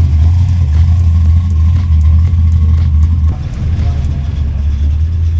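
A car engine idling close by, a deep steady rumble that eases a little about three seconds in.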